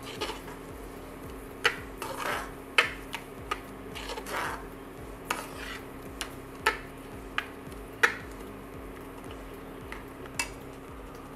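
Metal spatula stirring a thick grated-carrot, milk and sugar mixture in a metal pan, scraping and clinking against the pan's sides and bottom in about a dozen irregular strokes, over a steady low hum.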